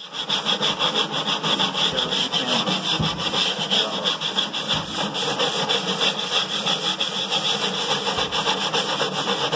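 Electric power sander switched on and running steadily against knotty alder, taking wood off bit by bit to trim a piece to fit.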